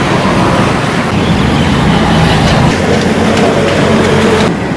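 Loud, steady rumble of heavy vehicle traffic passing close by. The higher part of the noise drops away abruptly near the end.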